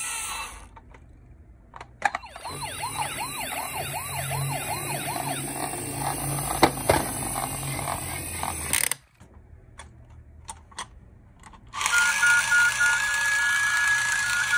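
Electronic siren sound effect of a toy police SUV: a quick, repeating up-and-down wail that cuts off suddenly, followed by a few handling clicks. Near the end a different electronic tone, alternating between two pitches, starts up.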